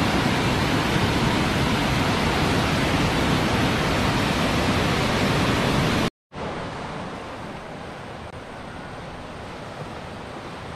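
Muddy floodwater of a swollen river rushing over a rocky drop, loud and steady. About six seconds in the sound cuts off for a moment and comes back as a quieter, softer wash of flowing floodwater.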